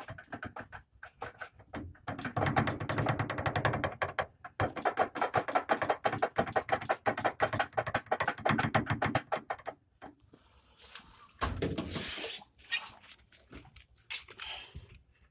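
LG washer in spin, its drum knocking rapidly and loudly inside the cabinet for several seconds before dying down about ten seconds in. The banging comes from worn shock absorbers that no longer hold the drum steady.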